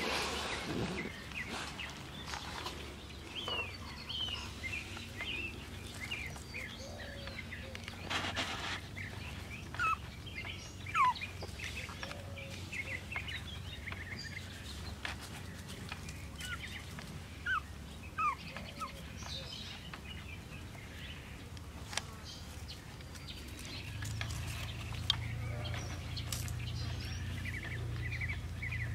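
Birds chirping with scattered short calls and quick pitch glides. Near the end a low steady hum comes in, along with a rapid run of chirps.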